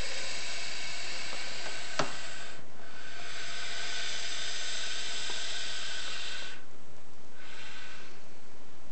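Python (Python molurus) hissing: long steady exhaled hisses, broken by a short pause about two and a half seconds in and a longer one near seven seconds in. A single faint click about two seconds in.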